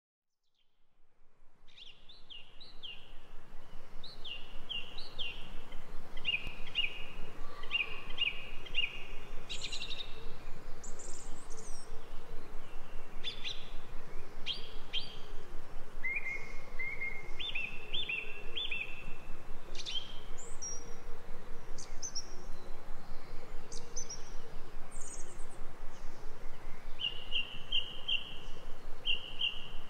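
Songbirds chirping and calling in quick repeated phrases over a steady background noise, fading in from silence over the first few seconds.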